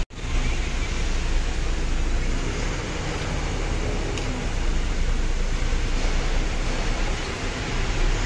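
Steady rumble and hiss of a goods lorry heard from inside its cab, with no distinct engine note or knocks.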